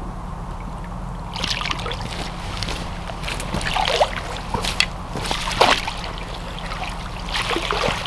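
A hooked common carp splashing at the surface of the lake in irregular bursts, starting about a second in, as it is played in close to the bank.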